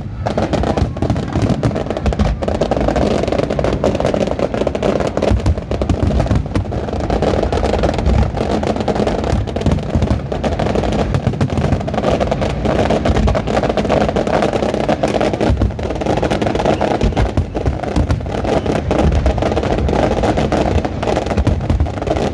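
Fireworks show bursting loudly and almost without pause: many shells banging and crackling in quick succession.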